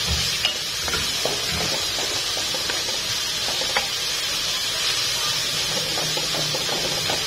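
Tomatoes sizzling in a hot pan, a steady hiss, with faint scattered clicks of a utensil stirring them.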